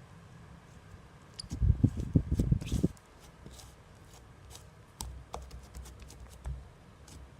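Hands working cloud slime: a run of soft, squishy low thumps about a second and a half in, with light sticky clicks and crackles before and after.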